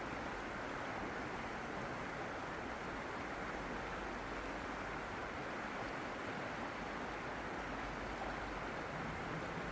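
Flowing water making a steady, even rush with no surges or pauses.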